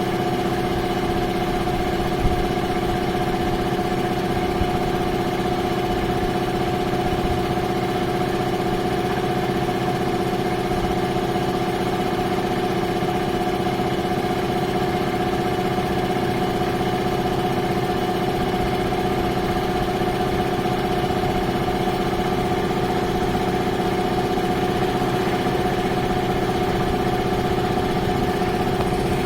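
JSI air compressor running steadily, a constant motor hum with a steady pitch that does not rise or fall.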